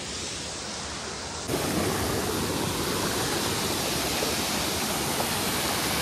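Mountain water falling and rushing, a steady rush of noise that turns abruptly louder about a second and a half in.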